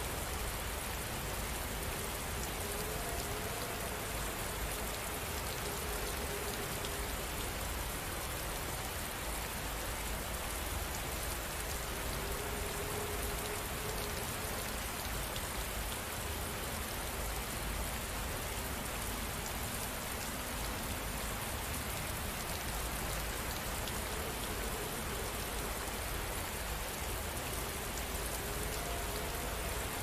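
Steady rain falling against a window pane: an even, unbroken hiss with a low rumble underneath.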